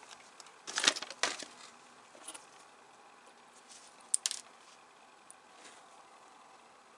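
Small clicks and light clatter from handling a tiny screw on a small screwdriver's tip and plastic model parts in gloved hands. A cluster of clicks comes about a second in, and a sharp double click just after four seconds.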